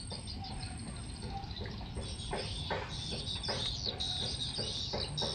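Birds chirping in quick, repeated high notes.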